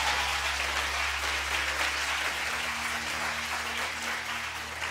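Studio audience applauding, slowly dying down toward the end.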